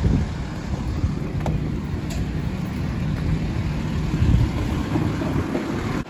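Wind buffeting the microphone over a low, steady rumble of fire truck diesel engines idling, with a dull thump a little past four seconds in.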